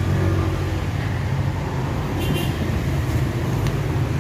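Twin-tub washing machine running on its newly refitted motor, a steady low hum, with a couple of faint clicks in the second half.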